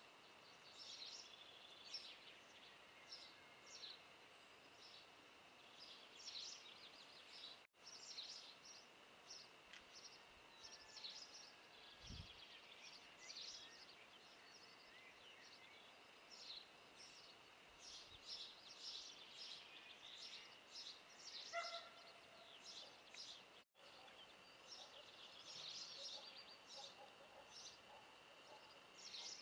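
Faint outdoor ambience of small birds chirping, many short high chirps throughout, over a steady faint high hiss, with one brief lower call about 21 seconds in. The sound drops out for an instant twice.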